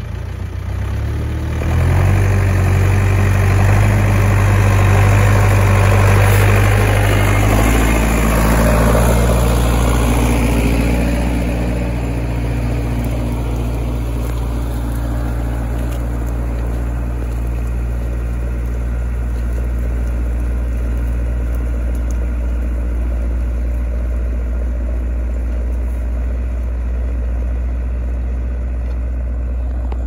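Zetor 4340 tractor's diesel engine working under load, pulling a three-furrow plough through the soil. It is louder and fuller for the first ten seconds or so, then settles to a steadier, quieter drone.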